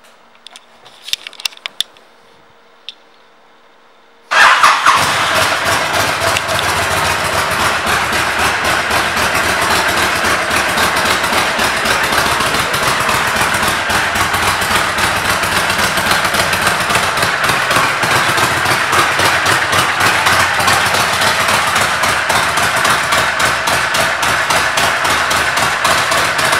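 A few light clicks, then the 2003 Honda VTX 1300S's 1300 cc V-twin, fitted with aftermarket pipes, fires up about four seconds in and catches at once. It then idles steadily and evenly.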